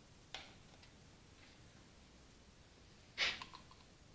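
Faint clicks and rubbing of spark plug wires and their rubber boots being pushed onto an Allis-Chalmers WD45's distributor cap and handled, with one short, louder rush of noise about three seconds in.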